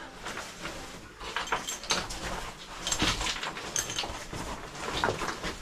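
Irregular scraping, knocking and rustling of a person crawling through a cramped rock passage in a cave, with clothing and gear brushing against the stone.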